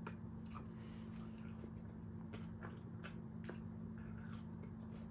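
A person chewing tacos close to the microphone: irregular soft crunches and mouth clicks, over a steady low hum.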